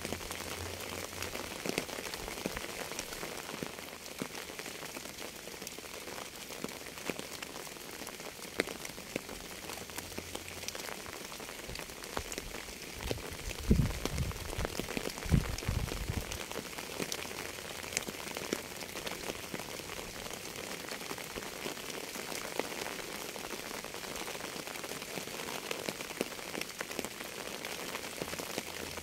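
Steady rain falling on a surface, a constant hiss with many single drops striking through it. About halfway through, two short low thumps stand out as the loudest sounds.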